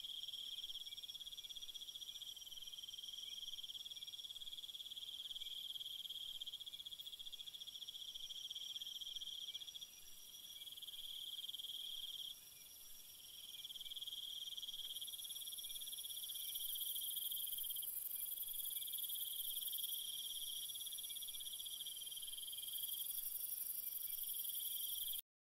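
Night forest ambience of crickets and other insects trilling together: several steady, high-pitched overlapping trills, with a higher, hissing layer of insects that grows louder about halfway through. The recording cuts off abruptly just before the end.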